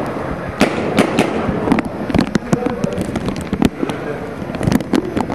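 Paintball markers firing: an irregular scatter of sharp pops, single shots and quick strings of two or three.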